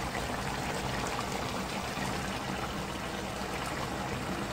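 A salted-fish and spinach stew boiling hard in a frying pan, a steady bubbling and popping of the sauce.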